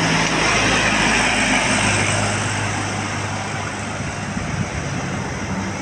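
Road traffic: vehicle engines running with tyre and road noise, a passing vehicle loudest in the first couple of seconds, then a steady low engine hum.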